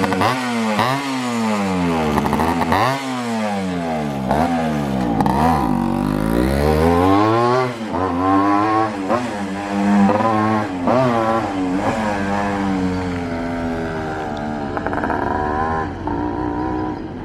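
Suzuki Shaolin's two-stroke engine through a chamber (expansion-chamber) exhaust, revved in quick blips about once a second, then in a couple of longer revs before settling to a lower, slowly falling note that gets quieter near the end.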